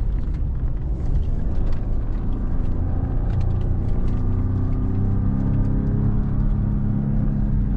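2017 Ford Raptor's 3.5-litre twin-turbo V6 running under load, heard inside the cab over a heavy rumble of tyres and suspension on a rough, muddy track, with scattered small knocks. From about three seconds in the engine's note comes through more clearly and holds steady.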